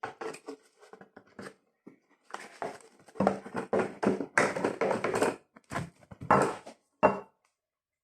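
Plastic wrapping being crinkled and handled in irregular rustles, sparse at first, then busier and louder from about two seconds in, stopping suddenly near the end.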